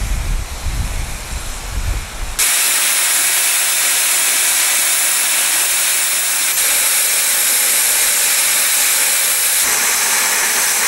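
Wind rumbling on the microphone, then from about two seconds in a loud, steady hiss of steam escaping from a 760 mm narrow-gauge steam locomotive standing with steam up.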